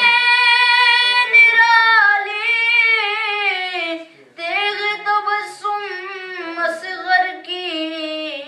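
A boy's solo unaccompanied voice singing an Urdu manqabat. It opens on a long held note, then moves into a winding, ornamented line, takes a short breath about four seconds in, and goes on with more held, sliding notes.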